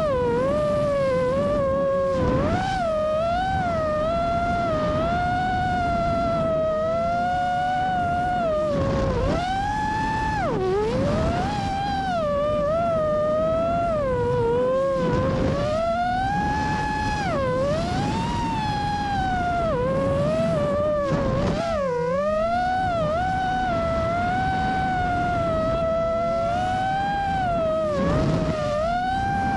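FPV racing drone's motors and propellers whining, the pitch swinging up and down continually with the throttle as it banks and dives, dipping sharply about three quarters of the way through. A low rumble sits underneath.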